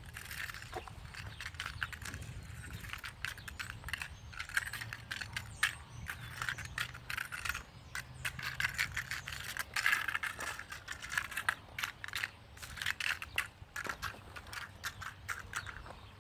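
Loose screws and nails being picked up off the ground and handled: rapid, irregular metallic clicking and jingling mixed with scraping, coming in uneven bursts.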